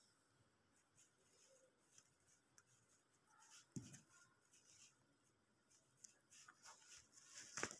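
Faint, intermittent scratching and rustling of a cat's claws on the fabric of a dome cat bed as it plays with a string, with a soft thump about four seconds in and a louder scratch near the end.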